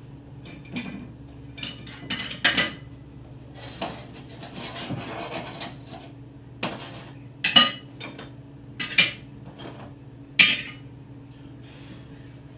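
Scattered clinks and knocks of hard household objects being handled, with four sharp ones standing out, over a steady low hum.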